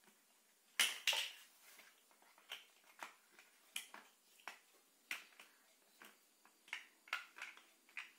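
Plastic Lego-style building bricks clicking and knocking as they are handled and pressed together, about a dozen short sharp clicks at irregular intervals.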